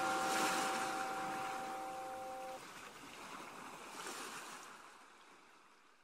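A church bell's ring dying away over the wash of sea waves; the bell's hum stops about two and a half seconds in, and the waves fade out near the end.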